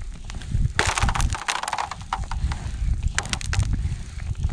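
Rubber boots stepping on thin, clear lake ice: irregular crunches and sharp cracks underfoot over a low, uneven rumble.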